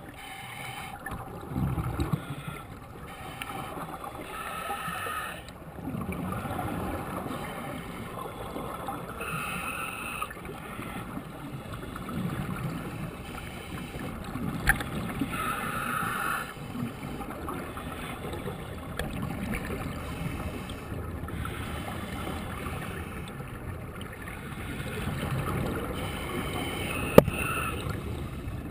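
Underwater scuba breathing heard through a submerged camera: a diver's regulator releasing bursts of exhaled bubbles every few seconds over a low, muffled water rumble. Two sharp knocks, about halfway through and near the end, from gear tapping.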